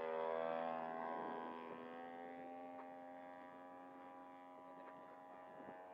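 Engine of a radio-controlled Fokker D.VIII scale model plane running flat out at a steady pitch. It is loudest at the start as the plane passes low and close, then fades as the plane flies off.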